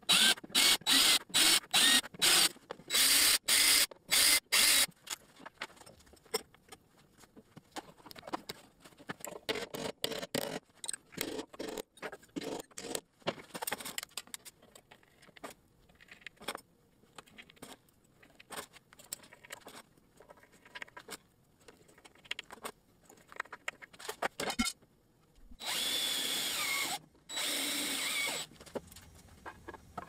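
Cordless drill running in quick stop-start bursts, about two a second, as a twist bit bores pilot holes into a walnut board. Then come quieter clicks and scraping of screws being turned in by hand, and near the end two longer runs of the drill, each about a second and a half.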